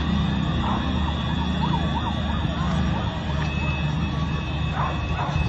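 Emergency vehicle siren sounding in quick up-and-down pitch sweeps, clearest from about a second and a half in to past the middle, over a steady low rumble of street noise.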